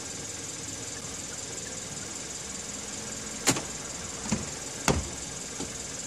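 Remote-started car idling steadily. A few sharp clicks and a thump come between about three and a half and five seconds in, as the driver's door is unlatched and opened.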